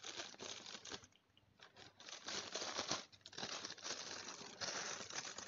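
Thin black plastic courier bag crinkling and crackling as scissors cut it open, going on and off with a short pause about a second in.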